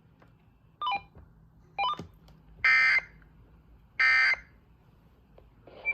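Emergency Alert System end-of-message data tones coming over the radio broadcast: a series of harsh electronic data bursts about a second apart, the last two longer than the first two. They mark the close of the Amber Alert.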